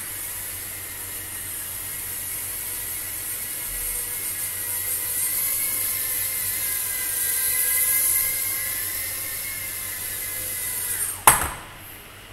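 Micro whoop drone's tiny motors and propellers whining at a high pitch, the pitch wavering slightly with the throttle. About eleven seconds in there is one sharp knock as the drone comes down, and the motor whine stops.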